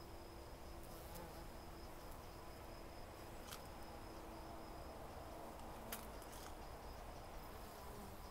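Honey bees buzzing around eucalyptus blossoms: a faint hum that wavers in pitch, over a thin steady high tone, with a few sharp ticks, the loudest about six seconds in.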